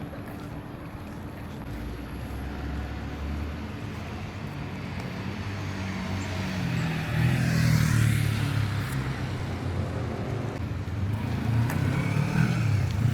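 Road traffic: vehicle engines running past, with the loudest one going by about eight seconds in and another building up near the end.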